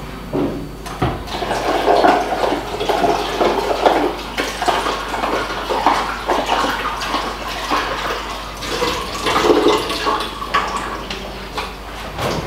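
Tap water running and splashing into a plastic container at a kitchen sink as ingredients are rinsed by hand, with irregular clattering knocks throughout.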